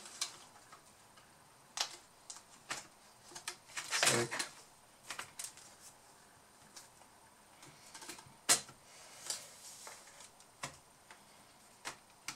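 Irregular plastic clicks and taps of laptop parts being handled: a ribbon cable being seated in its connector and the keyboard deck pressed into place. The loudest click comes a little past the middle.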